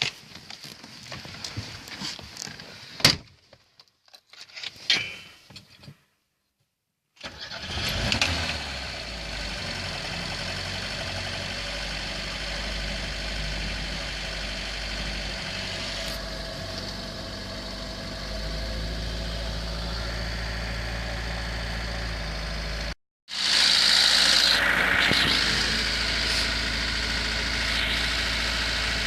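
Lada VAZ-21013's four-cylinder engine starting about seven seconds in and settling into a steady idle; after a brief break near the end it runs louder. Before the start there are a few clicks and knocks.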